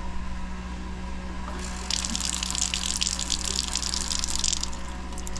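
Galley faucet on a sailboat running a thin stream of water that splashes into a stainless steel sink. The water comes on about two seconds in and shuts off near the end, over a steady low hum.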